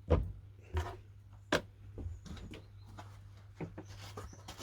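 A few sharp knocks and clicks of hard objects being handled and set down, over a steady low hum.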